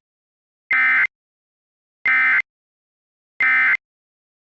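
Three short, evenly spaced bursts of harsh digital data tones from an Emergency Alert System broadcast, each under half a second long. This is the SAME end-of-message code (NNNN), the sign that the weather warning has ended.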